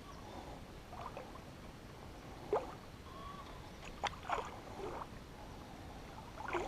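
Faint water movement at a river's edge, with a few soft splashes and knocks, the clearest about two and a half seconds in and again around four seconds in.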